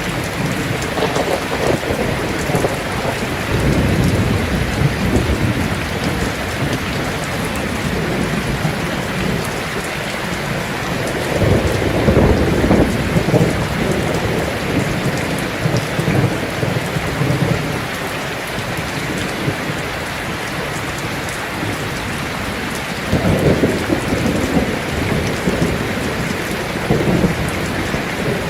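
Heavy rain drumming steadily on a tin roof, with thunder rolling low three times, the loudest roll about twelve seconds in.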